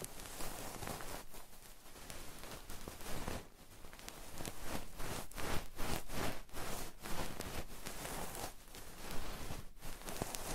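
Close-miked rubbing on an ASMR microphone's ear: a run of soft rustling strokes, about one or two a second, with a few faint clicks near the end.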